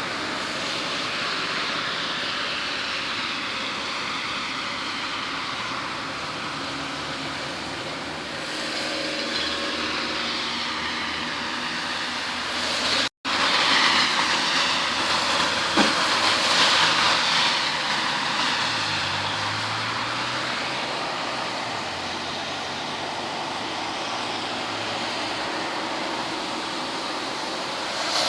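Steady rushing noise with no clear pitch, broken by a sudden dropout about 13 seconds in.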